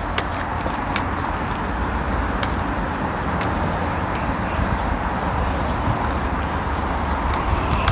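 Steady outdoor background noise with a low rumble and a few faint, sharp ticks scattered through it.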